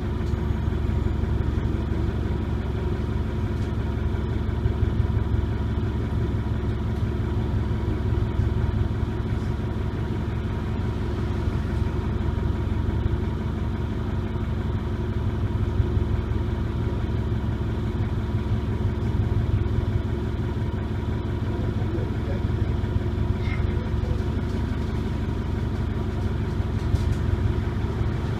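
Detroit Diesel Series 50 diesel engine of a New Flyer D40LF bus idling steadily, a constant low drone heard from inside the passenger cabin.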